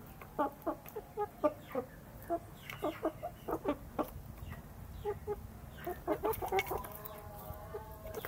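Chickens clucking in many short calls, about two or three a second, with a longer drawn-out call around six to seven seconds in. Sharp clicks of beaks pecking at a metal feed bowl come with the clucks around six seconds in.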